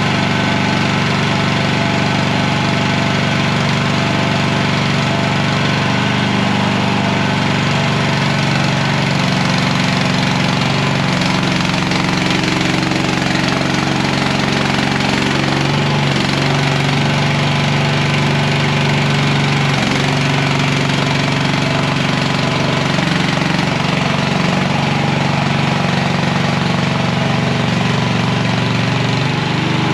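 Mini skid steer engine running steadily under light load, its pitch shifting slightly a few times as the machine works.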